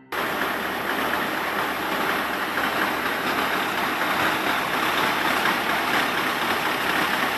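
Truck engine running steadily, heard as an even, unbroken noise.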